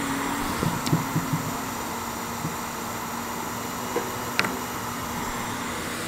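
Steady workroom hum and hiss, with a low steady tone and a few light clicks and taps, the sharpest about four and a half seconds in.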